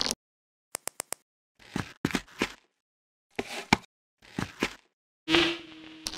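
Sound effects for a Lego stop-motion scene. About a second in come four quick clicks, then a few short bursts of soft taps or steps with silence between. Near the end a loud whoosh swells up with a steady hum under it, an energy effect for the glowing Ten Rings.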